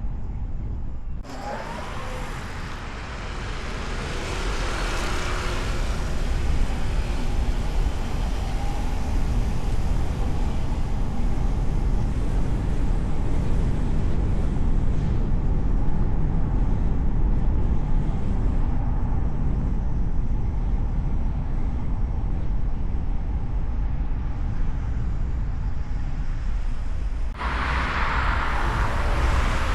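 Car driving on city streets, heard from a hood-mounted camera: a steady low rumble of engine, tyres and wind, with the hiss swelling louder about four seconds in and again near the end.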